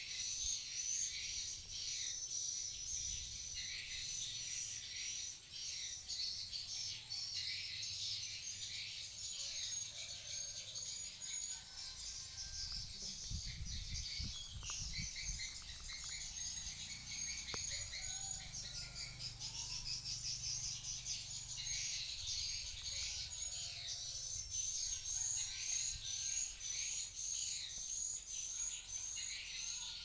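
Edible-nest swiftlets chirping and twittering in a dense, continuous chorus of high chirps, with a regularly repeated run of chirps near the end.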